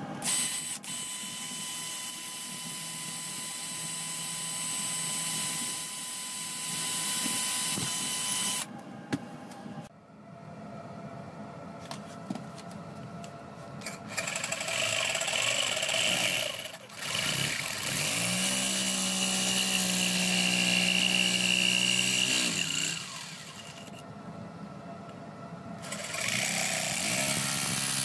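A cordless drill boring handle-pin holes through a steel knife blade clamped in a vise, running steadily for the first several seconds. Later an electric jigsaw cutting a fibre handle slab, running in long stretches, easing off briefly and starting again near the end.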